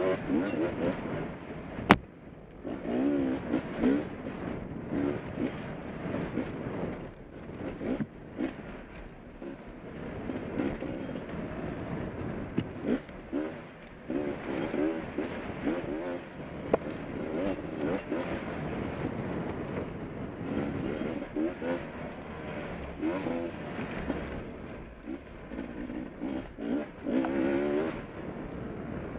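Beta 250RR two-stroke dirt bike engine revving up and down over and over as the throttle is worked, with scattered knocks and rattles and a sharp click about two seconds in.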